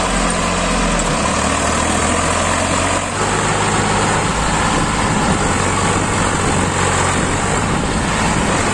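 Swaraj 744 FE tractor's three-cylinder diesel engine running steadily, with an even, low engine note.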